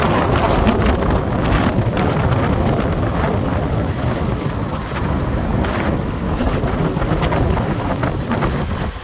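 Wind buffeting the microphone: a loud, steady rush of noise that swells and dips without a break.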